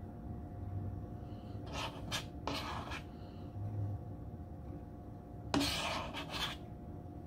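Kitchen handling noise from food being prepared: a few brief scrapes and rustles, about two seconds in, near three seconds, and loudest about five and a half seconds in. A steady low hum runs underneath.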